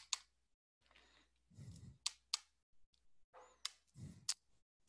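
Faint, sharp clicks in three pairs, spaced about a second and a half apart, with a soft low sound just before the second and third pair.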